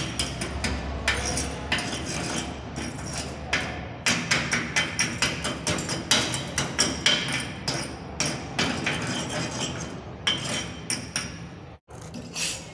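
Chipping hammer tapping rapidly on two stick-weld beads on a steel plate, several sharp strikes a second, knocking off the slag left by E6013 electrodes. Near the end the strikes give way to a wire brush scrubbing the beads clean.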